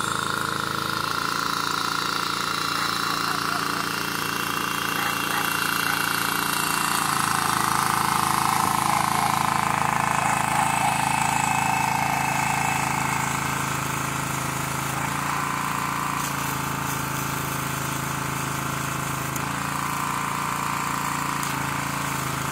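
Arc welding on steel fence pipe: the crackle and hiss of the welding arc over a steady engine hum whose pitch steps up and down a few times.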